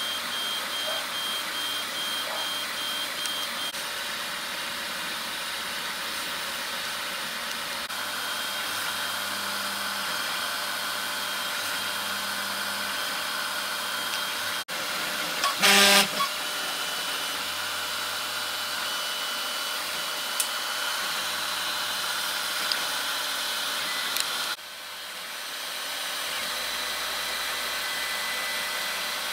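Velleman K8200 3D printer running a print: the stepper motors whine in short tones that keep changing pitch as the head and bed move, over the steady whir of its fans. About 16 s in there is a brief, loud burst of tones.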